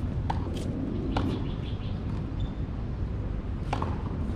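Outdoor tennis court ambience: a steady low background rumble with a few sharp knocks of a tennis ball, and brief high bird chirps around the middle.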